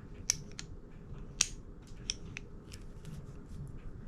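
Small metal clicks and ticks from Mosin-Nagant rifle bolt parts being worked by hand as the charging knob is threaded onto the firing pin against its spring. Two sharper clicks stand out, one just after the start and one about a second and a half in.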